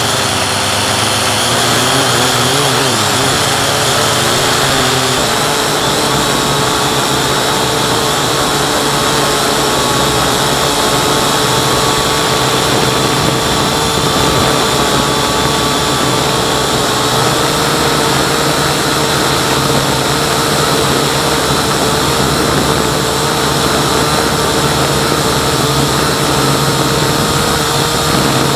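Syma X8C quadcopter's electric motors and propellers whining steadily over a hiss of rushing air, heard through its onboard camera. The pitch wavers for the first few seconds, then holds level.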